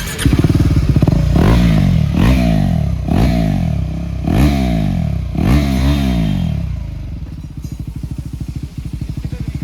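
KTM Duke 390's single-cylinder engine fires up and is blipped about five times, each rev rising and falling, then settles to a pulsing idle about six and a half seconds in. An aftermarket exhaust is being tried on it in place of the stock silencer.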